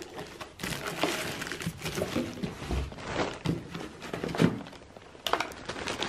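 Rustling and crinkling of plastic wrapping and foam-packed cardboard as parts are lifted out of a box, with a few light knocks.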